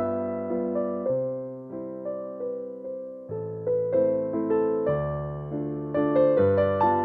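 Background piano music: notes and chords struck one after another, each left to fade.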